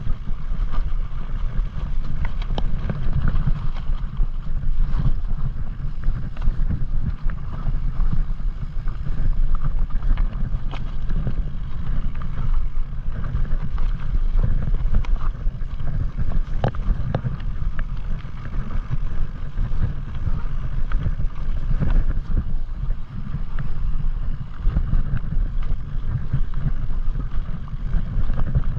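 Wind buffeting the microphone over a steady low rumble as a mountain bike rolls across snowy, rocky ground, with scattered clicks and rattles from the tyres and bike going over stones.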